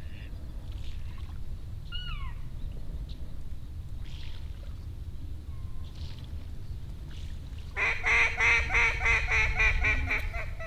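Mallard quacking: a loud, rapid run of quacks, about five a second, starting near the end, over a low steady wind rumble. A short falling whistle-like call sounds about two seconds in.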